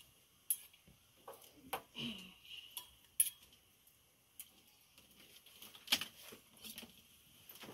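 Steel bowl and utensils clinking and tapping as chopped onion goes into a kadhai of boiling water: a handful of sharp clinks spread out, the loudest about three seconds in.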